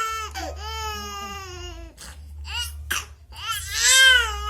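Baby crying: a long high wail that fades out over the first two seconds, a few short catching sobs, then another loud wail near the end.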